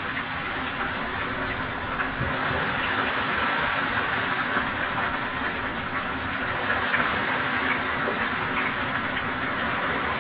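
Marinated boneless chicken pieces deep-frying in hot oil in a kadai: a steady, dense sizzle with small crackles and pops throughout, the oil bubbling hard around pieces added to it a short while earlier.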